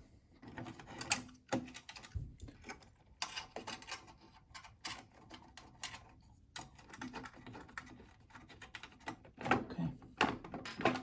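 Irregular small clicks and taps of handwork on a printer's control panel: a 3mm Allen wrench backing out the panel's screws, with metal and plastic parts knocking as they are handled.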